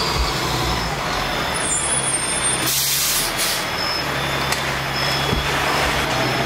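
Heavy truck engine running steadily, most likely fire apparatus, with a brief burst of air hiss near the middle.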